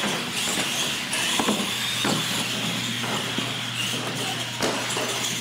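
Radio-controlled monster trucks racing: electric motors and gears whining and tyres running on a concrete floor, with three sharp knocks as a truck hits and comes off the ramps.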